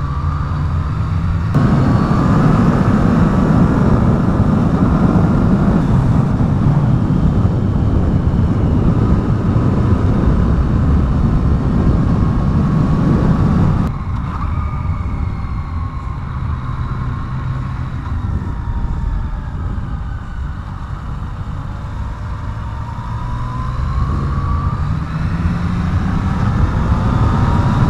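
Yamaha FZ-09's three-cylinder engine under way, with loud wind rush on the GoPro microphone. The wind drops suddenly about halfway through as the bike slows, and the engine note climbs again near the end as it speeds up.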